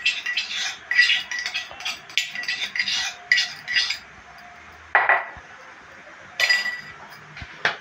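Steel spoon clinking and scraping inside a small stainless-steel cup as ginger-garlic paste is worked out of it into the pan: a quick run of ringing metal taps for about four seconds. After a short pause come a few separate metal knocks, about five and six and a half seconds in.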